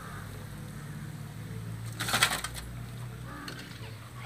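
Wire frying skimmer clattering against metal cookware: a short burst of rattling about two seconds in, over a low steady hum.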